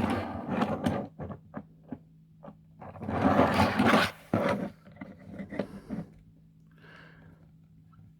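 Plastic action figures being handled: a series of small clicks and knocks, with a longer rubbing, scraping stretch about three seconds in, over a faint steady hum.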